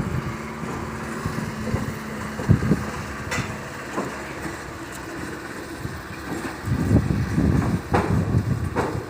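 A truck crossing a beam bridge: its engine runs steadily, with a few knocks, then a louder stretch of rumbling and clattering about two-thirds of the way through as it goes over the bridge beams.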